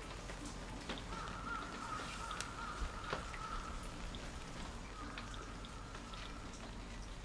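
Water dripping into still water: scattered soft plinks of single drops. Twice a faint, level, high-pitched tone is held for a second or two over it.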